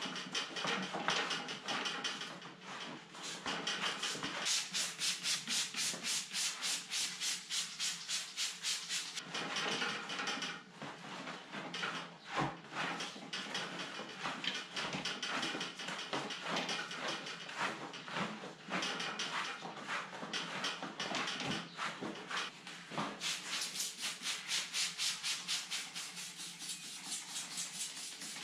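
Rapid back-and-forth scrubbing on the rubber tread of a mountain-bike tyre, about three strokes a second, pausing briefly twice.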